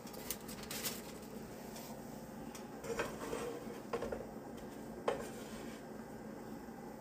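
Metal spatula clinking and scraping against a frying pan while pancakes are lifted, a few sharp separate clinks, the loudest about three, four and five seconds in.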